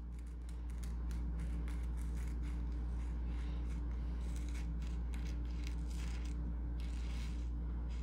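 Light scraping and small clicks of a bicycle headset top cover being worked up and off the steerer tube, over a steady low hum.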